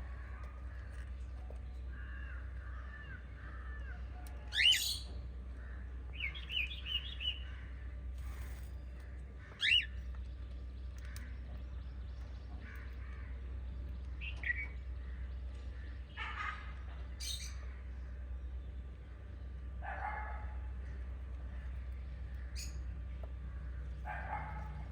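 Small pet parrots chirping at irregular intervals: sharp single rising chirps, the loudest about five and ten seconds in, and a quick run of four chirps shortly after the first, over a steady low hum.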